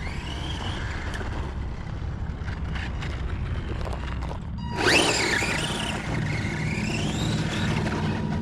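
Radio-controlled Tamiya Blitzer Beetle's electric motor whining under throttle, over a steady low rumble. About halfway through the whine shoots up sharply, drops back, then climbs again as the throttle is worked and the car slides about on loose dirt.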